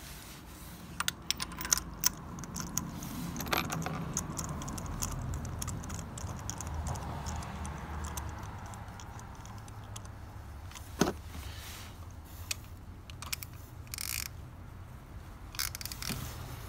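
Scattered metallic clicks and clinks of a spark plug socket and extension being handled and fitted down a plug well onto a spark plug in the cylinder head, the plug being put in by hand.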